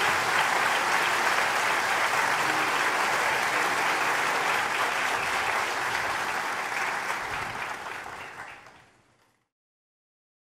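Theatre audience applauding, a dense steady clapping that fades out near the end.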